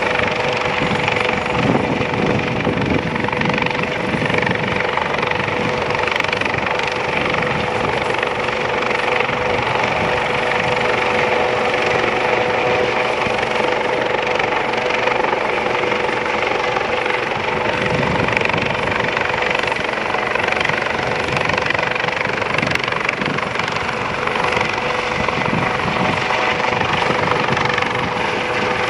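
Eurocopter AS365 Dauphin helicopter hovering close by: its twin turbines and rotors running steadily, with a steady whine over the rotor noise.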